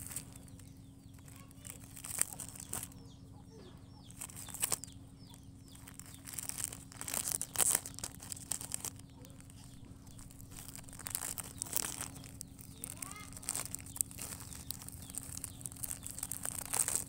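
Puppy chewing and tugging at a thin plastic snack wrapper: irregular crinkling and crackling of the plastic in short bursts, with faint chirps in the background.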